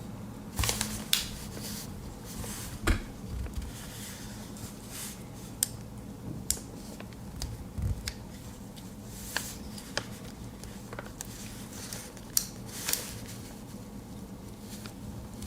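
Cardboard courier package being handled on a table: scattered sharp taps, clicks and short scrapes, the loudest near the start and about two-thirds of the way through. A faint steady hum runs underneath.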